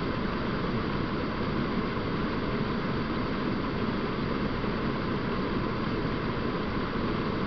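Small tiered waterfall spilling over rock ledges: a steady, unchanging rush of falling water.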